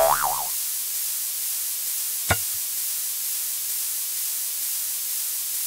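A steady, even hiss. A brief warbling tone sounds at the very start, and a single sharp click about two and a half seconds in.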